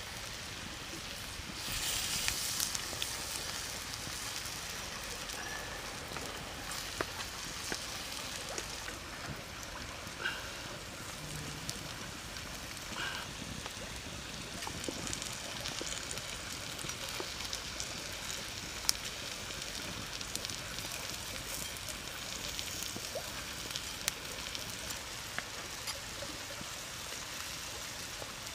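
Wood fire crackling under a hot stone slab as shrimp sizzle on it, a steady hiss with scattered sharp pops. A louder burst of hissing comes about two seconds in.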